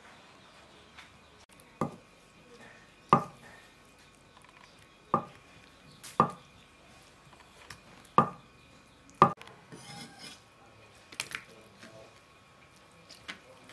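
Steel cleaver chopping through blocks of tofu onto a wooden cutting board: six sharp knocks, roughly one a second, through the first two-thirds, then a few lighter taps and clicks.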